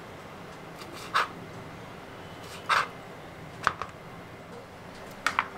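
Kitchen knife on a plastic cutting board while orange segments are peeled and cut: a handful of short, sharp scrapes and taps. There is one near one second and a slightly longer one just before three seconds, then two quick pairs near four and five seconds, over a steady low background hum.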